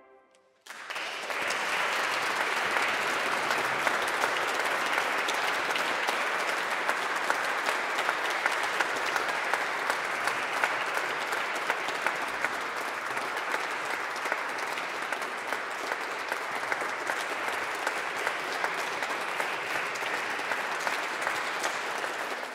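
Audience applauding: a short silence, then clapping that breaks out about a second in and goes on steadily.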